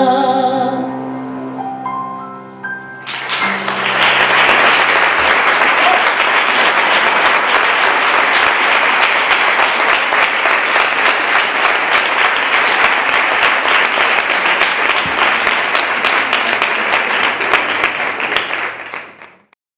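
A woman's voice holding a final sung note with vibrato over closing piano chords, then an audience applauding from about three seconds in, fading out at the end.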